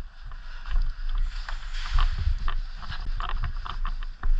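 Rustling gear and footsteps of a player on the move, with scattered short clicks and low thuds over a steady rush of noise.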